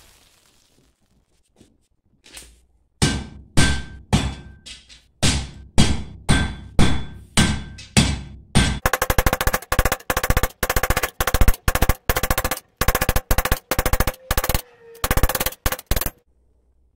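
Hand hammer striking a red-hot steel bar on an anvil, forging a tapered leg end: separate blows about two a second with the anvil ringing, then from about nine seconds a faster run of several blows a second that stops suddenly near the end.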